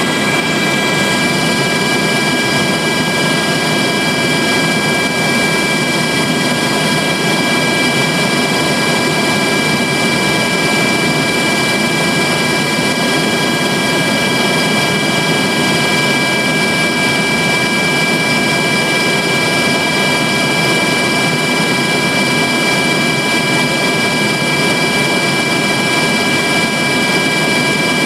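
Steady in-flight cabin noise of an aircraft: a constant loud roar with several high turbine whine tones held at one pitch.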